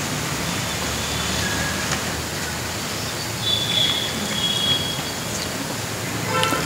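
Steady background hiss and low hum of a large hall, heard through the microphone, with a few faint high chirps about three and a half seconds in and a brief click near the end.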